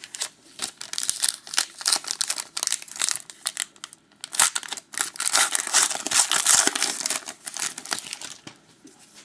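A wrapper on a pack of 2012-13 Panini Certified hockey cards being torn open and crinkled, a busy run of irregular crackling and tearing that is densest in the middle and dies away near the end.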